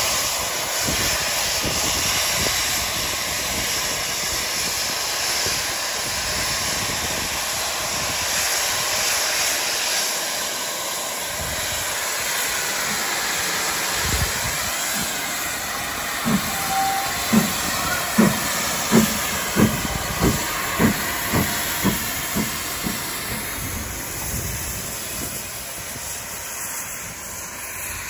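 GWR Castle class steam locomotive 5043 Earl of Mount Edgcumbe: a steady hiss of steam, then from about halfway a run of exhaust chuffs that quicken as the engine pulls away, fading near the end.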